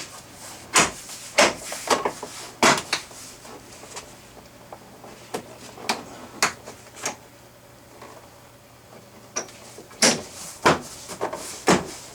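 Plastic upper trim piece of a 1999 Ford F250 Super Duty rear door being pressed and snapped into its clips: a run of sharp snaps and knocks, several in the first few seconds, a few scattered through the middle and another cluster near the end.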